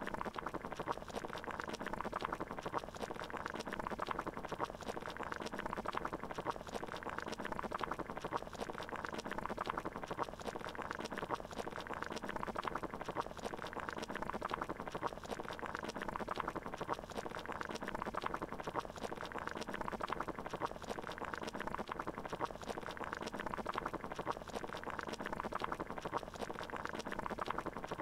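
Water boiling, a steady dense bubbling with no change in pace.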